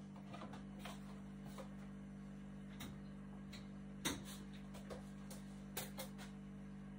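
Light clicks and knocks of a glass bottle and other kitchen items being handled and set down on a worktop, the loudest about four seconds in and two close together near the end, over a steady low hum.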